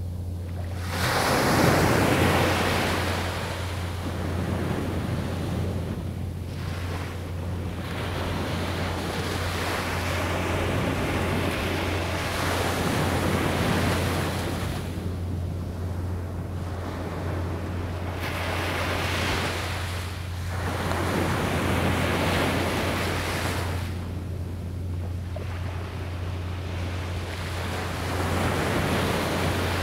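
Small surf breaking and washing up the beach in slow swells every several seconds, the loudest near the start. Wind on the microphone adds a steady low rumble underneath.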